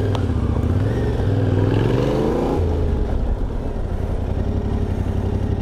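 Yamaha Ténéré 700's parallel-twin engine running at low road speed, with wind noise over it; its pitch rises from about a second in, then drops back.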